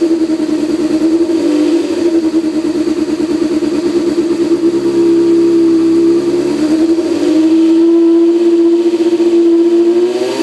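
Honda CB600F Hornet's inline-four engine running through an Akrapovic GP titanium slip-on exhaust, held at steady revs. The pitch lifts slightly about a second and a half in and again near the end.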